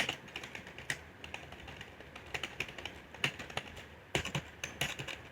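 Keys of a new gaming keyboard being pressed, an irregular run of sharp key clicks a few times a second.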